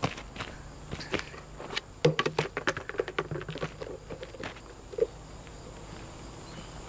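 Gasoline-and-styrofoam napalm burning under a car's engine, giving irregular crackles and pops that come thick and fast about two seconds in, with one sharp pop about five seconds in. Crickets chirp steadily behind.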